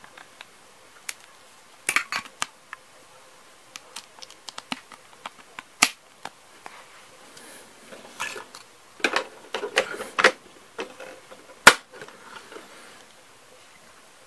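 Hard plastic Playmobil pieces being handled and pressed together: a scatter of small sharp clicks and taps, with a louder click near the end.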